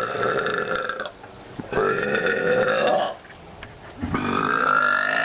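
A girl burping three times in a row, each a long drawn-out belch of about a second, with short pauses between; the third runs on past the end.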